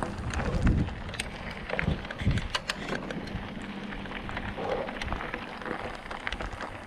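Mountain bike rolling downhill on a dirt and gravel track: the tyres crunch and crackle over loose stones, with many sharp clicks and rattles from the bike and a few low thumps over bumps in the first half.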